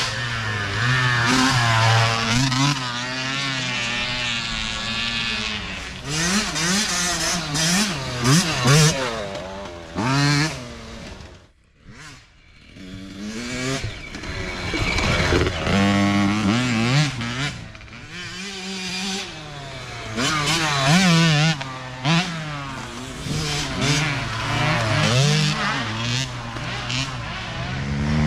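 Youth dirt bike engines revving up and down as riders work along a tight wooded trail. The engine sound dies away briefly about halfway through, then builds again as the next bike comes on.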